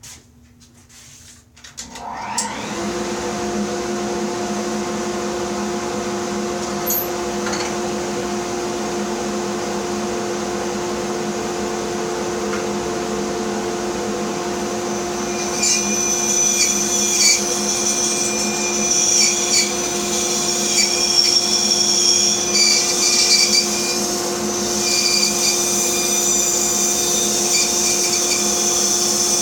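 A bandsaw is switched on about two seconds in and its motor runs with a steady hum. From about halfway the blade is cutting wood, adding an uneven high whine that varies as the cut goes on.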